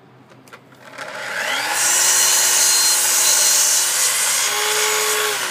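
Festool sliding chop saw: a couple of clicks, then the motor spins up with a rising whine and the blade cuts through a softwood noggin with a loud hissing rasp. Near the end the cutting noise stops and the motor note steps up as the blade runs free of the wood.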